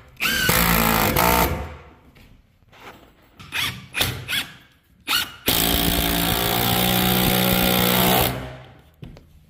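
Power driver sinking long construction screws through a 2x4 bottom plate into the floor: one run of about a second and a half, a few short bursts, then a longer run of about three seconds that stops near the end.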